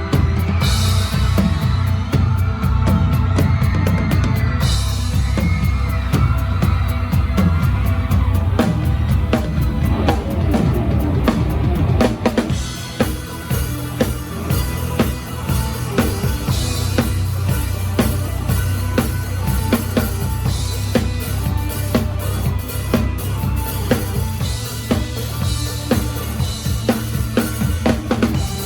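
A live band playing, heard close to the drum kit: kick drum, snare and rimshots struck in a steady rhythm over a heavy bass line.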